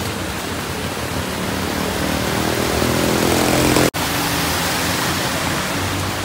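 Heavy rain falling steadily on a flooded street, a dense even hiss. A low hum grows louder about halfway through, and the sound breaks off for an instant about four seconds in.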